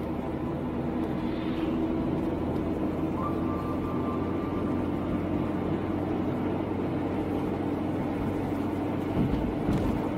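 Steady road and engine noise from inside a moving car.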